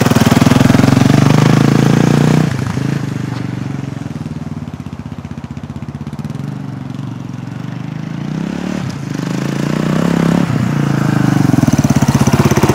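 Single-cylinder LC4 four-stroke engine of a KTM 620 RXC dual-sport motorcycle running as the bike is ridden. It is loud at first, drops off sharply about two and a half seconds in as the bike moves away, and grows louder again from about ten seconds in as it comes back.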